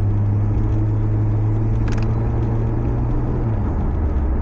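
Toyota Supra engine running at steady revs while driving, the note dropping to a lower pitch about three and a half seconds in as the revs fall off. A short click comes about two seconds in.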